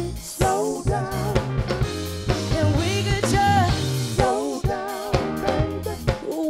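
A live soul band recording, mixed from multitrack: a woman singing the lead melody over a drum kit keeping a steady beat on bass drum and snare.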